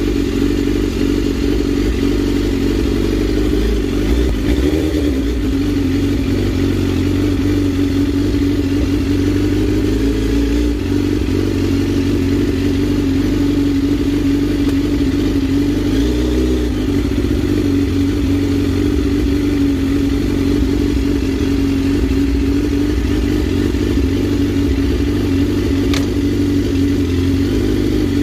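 Suzuki GSX-R1000's inline-four engine idling steadily with an even, unchanging pitch.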